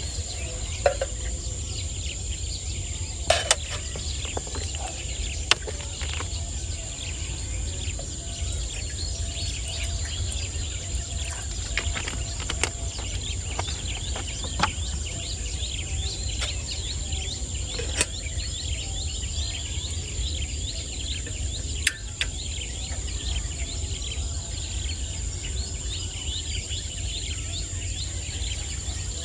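Wet-field ambience of birds and insects calling: a steady high insect whine with many short chirps over a low rumble. A few sharp clicks come from camping cookware and a plastic water bottle being handled.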